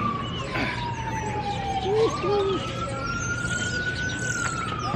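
Emergency-vehicle siren wailing: a single tone sliding slowly down, jumping back up about two seconds in, then rising and falling again. Two brief voice-like sounds come about two seconds in.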